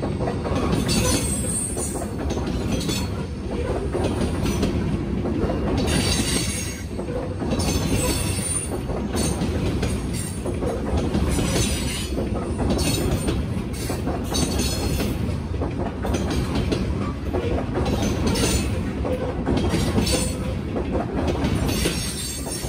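Freight train cars rolling past: a steady, loud rumble of wheels on the rails, with high-pitched wheel squeal rising and falling every second or two.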